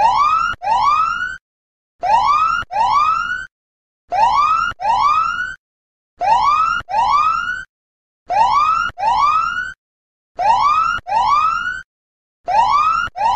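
Countdown timer's end alarm: an electronic whooping siren, two rising whoops back to back, the pair repeating about every two seconds.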